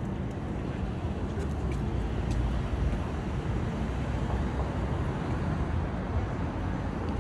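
Steady city street traffic noise, a low rumble of road traffic.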